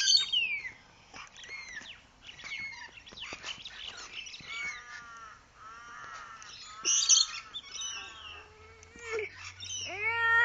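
Birds chirping and calling: short chirps and whistled glides throughout, with a run of repeated harsher calls about halfway through and a rising call starting near the end.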